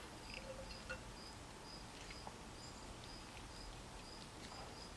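Quiet workshop room tone with a few faint light clicks as a steel cylinder part is slid over the hydraulic cylinder's shaft. Through it runs a faint high chirp that repeats about twice a second.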